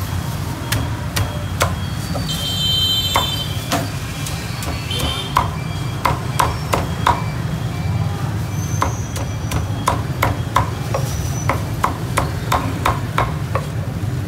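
Cleaver chopping roast pork on a thick wooden chopping block: a string of sharp knocks, sparse at first and coming faster, two or three a second, in the second half.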